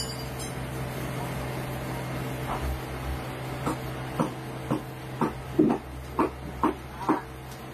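Tin snips biting into the lead connector straps on top of a car battery's cells: a series of about nine short, dull crunches, roughly two a second, starting a couple of seconds in and getting louder, over a steady low hum.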